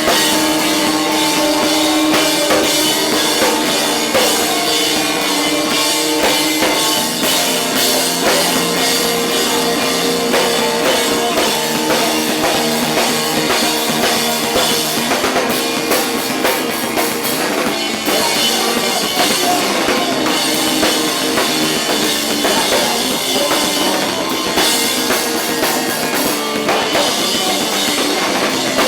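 Rock band playing loud, with a drum kit and guitar; the sound is thin in the low end.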